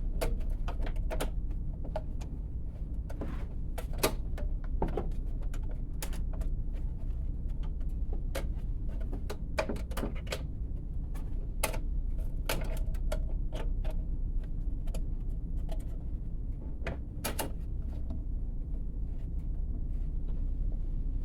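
Irregular clicks, taps and light metallic knocks from a bandsaw blade being handled and worked over the pulleys and between the guide rollers of a portable bandsaw.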